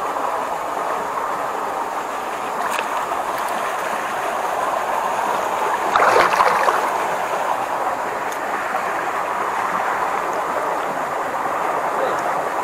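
Water sloshing and splashing steadily as a gill net is hauled through a shallow muddy stream, with a louder splash about six seconds in.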